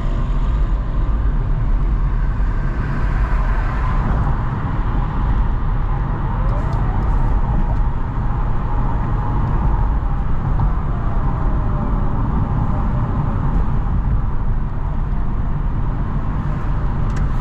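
Steady road-traffic noise: car engines and tyres with a heavy low rumble.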